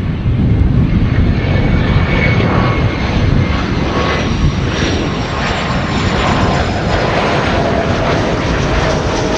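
Jet aircraft engines passing close: a loud, steady, deep rumble with a thin high whine over it.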